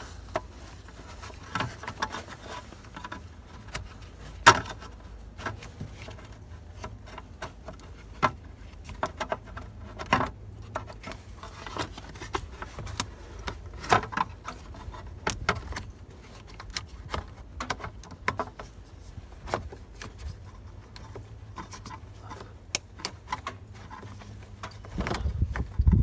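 Keys jangling on their ring, with scattered clicks and rattles, as a replacement ignition switch is worked into place under the steering column while the key is turned.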